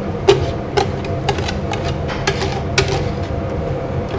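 A metal utensil knocking and scraping against a metal pot while thick polenta is scooped out into a stainless steel tray: short knocks about twice a second, over a steady low hum.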